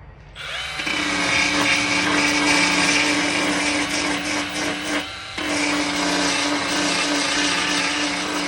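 Power grinder grinding down the sheet-metal surface of a car's quarter panel to prepare it for repair. It spins up about half a second in, runs with a steady whine and a harsh rasp, cuts out briefly around five seconds in, then runs again.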